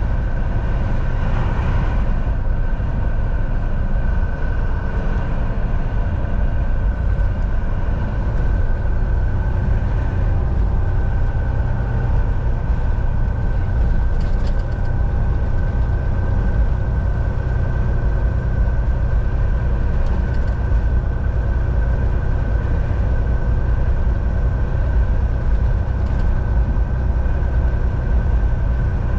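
Semi-truck driving at a steady speed: a constant low engine and road rumble heard inside the cab, with a thin steady whine above it.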